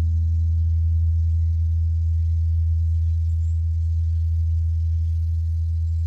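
Large bronze Korean Buddhist temple bell (beomjong) ringing on after a strike: a deep, steady hum that slowly fades, with a higher overtone dying away about a second in.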